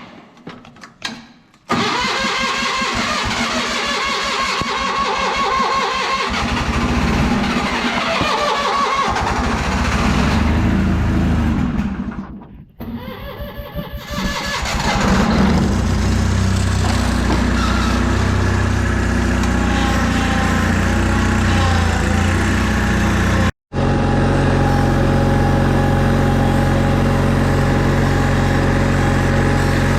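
Old tractor engine cranked over by its starter for about ten seconds, then a short pause, then cranked again until it catches about fifteen seconds in and settles into a steady idle. A brief gap in the sound comes a few seconds after it starts running.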